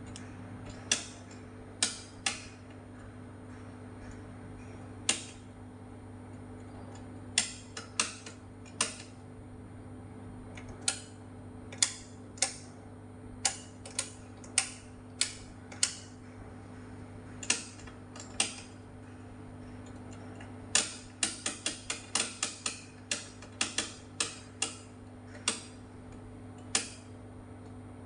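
Detented rotary selector knobs on an analogue oscilloscope clicking as they are turned step by step: single sharp clicks at irregular intervals, then a quick run of clicks about two-thirds of the way in. A steady low hum runs underneath.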